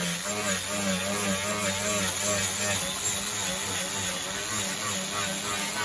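Handheld power grinder grinding thick body putty off a steel door panel: a harsh, steady grinding hiss over the motor's whine, its pitch dipping and recovering again and again as the disc is pressed into the panel.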